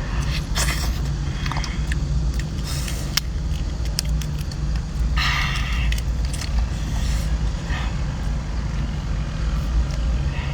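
A steady low rumble underneath, with several short crackling bursts and scattered clicks from large prawns being peeled and chewed; the biggest burst comes about halfway through.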